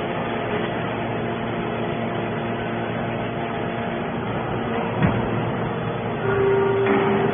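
Hydraulic baler machinery running with a steady mechanical hum. There is a single knock about five seconds in, and from about six seconds a louder steady whine joins the hum.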